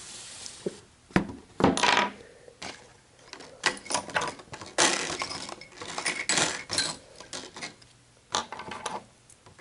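Small metal tools and parts from a phone repair kit clinking and clattering against a hard surface as they are handled: a string of light clicks and taps, some with a brief ring.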